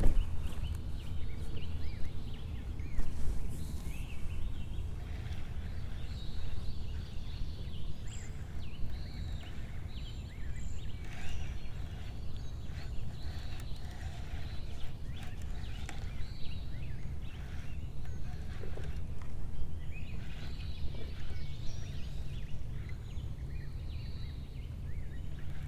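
Many short bird calls and chirps scattered throughout, over a steady low rumble.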